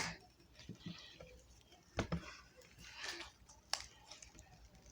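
Slime being handled by hand: faint soft squishing with scattered small clicks, the sharpest about two seconds and nearly four seconds in.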